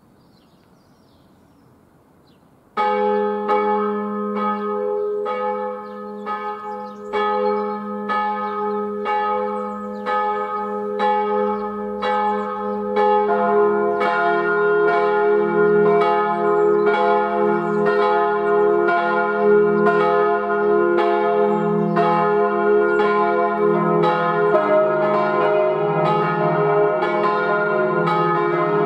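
Swinging church bells from a four-bell peal cast by H. Rüetschi of Aarau in 1897 (c', es', f', as') begin to ring about three seconds in. A single bell strikes steadily at first. A second, deeper bell joins about halfway, and the peal thickens again shortly before the end.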